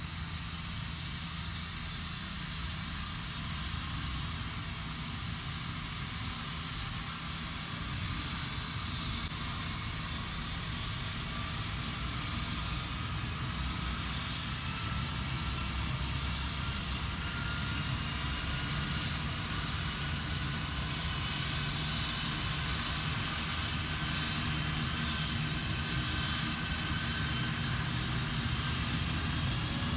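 Medical helicopter running on the ground with its rotors turning, ahead of take-off. Its turbine whine steps up in pitch about 3 and 8 seconds in and again near the end, over a steady low rotor beat, and the whole grows slowly louder.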